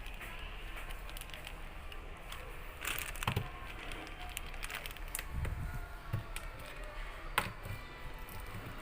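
Scattered sharp plastic clicks and a few light knocks from a laptop's plastic case being handled and pried apart during disassembly.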